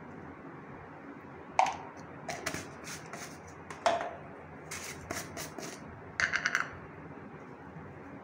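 Sharp clicks and taps of a spoon and small plastic spice tubs being handled and set down, with a quick run of several ticks near the end.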